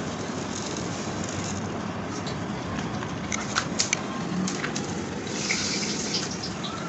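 Granulated sugar being tipped and sprinkled by hand onto cut fruit in a steel bowl: a light crackle with a few sharp clicks about halfway through and a short hiss near the end.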